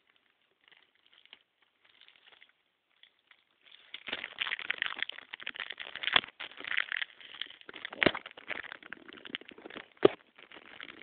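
Cellophane shrink-wrap on a CD case crinkling as it is handled and a sticker is picked at. It is faint at first and becomes dense crackling from about four seconds in, with a few sharp clicks.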